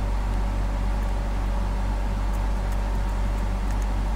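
Steady low electrical hum, with a few faint scratches of a screwdriver tip on the corroded metal track of a car blower-motor resistor board.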